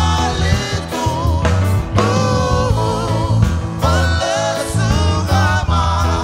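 A man singing lead into a microphone over a live band, with an electric bass guitar playing steady low notes under a regular beat.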